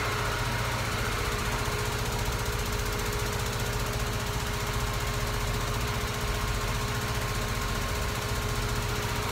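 Sand washing and separating machinery running steadily: a loud, even mechanical din with a rapid pulsing rattle and a couple of steady hum tones.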